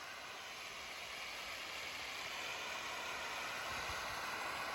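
Firework fountain with a spinning pinwheel spraying sparks, giving a steady hiss that grows slightly louder.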